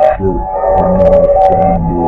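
Slowed-down "screwed" hip-hop track: held synth chords over a deep bass line and drum hits.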